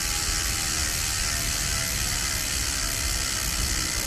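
New Ride Out Supply freewheel on an SE Bikes Big Flyer BMX cruiser ratcheting while the bike coasts, its pawls going so fast they make a steady, loud whir.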